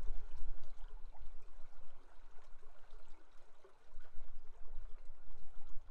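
River water running steadily, with a low rumble underneath that eases off in the middle and comes back near the end.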